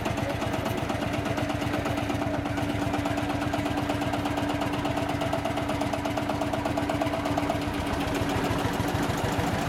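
Lanz Bulldog tractor's single-cylinder hot-bulb two-stroke engine running with an even, rapid beat as the tractor drives slowly past.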